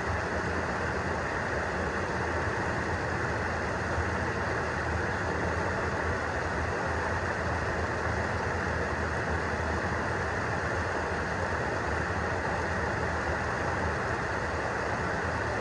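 Fast stream water rushing steadily over a rock ledge and churning around a person sitting in the current in waders.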